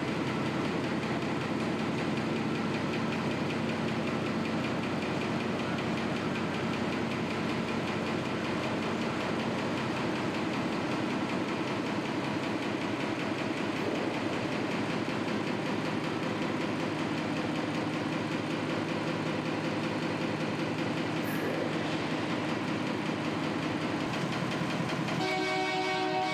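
Small diesel shunting locomotive's engine running steadily at a low, even note.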